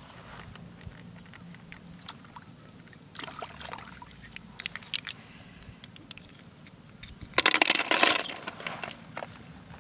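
River snail shells clicking and clattering against each other and the sides of a plastic bucket as they are dropped in and handled, with scattered clicks, then a denser, louder clatter about seven and a half seconds in.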